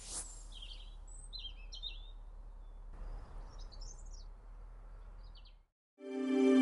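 Birds chirping in short bursts of calls over a faint steady outdoor background with a low hum. The ambience cuts off abruptly, and soft music with held tones starts just before the end.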